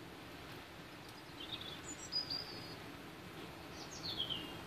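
A small songbird chirping in two short bursts of falling high notes, about a second and a half in and again near the end, over a steady hiss of wind and rain.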